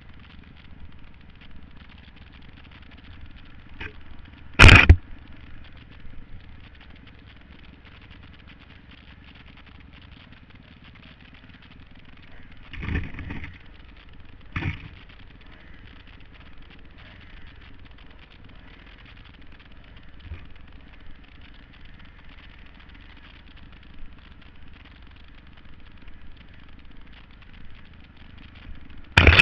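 Kawasaki KX250F dirt bike's single-cylinder four-stroke engine running steadily while ridden, heard from a helmet-mounted camera. Sharp loud knocks come about five seconds in and twice more near the middle.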